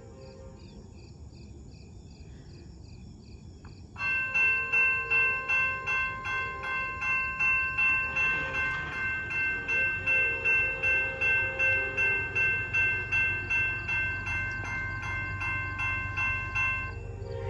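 Railroad crossing bell starting about four seconds in and ringing at about two strikes a second as the crossing activates for an approaching train, stopping near the end once the gate arms are down. Before it starts, a fainter crossing bell rings from a neighbouring crossing farther down the line.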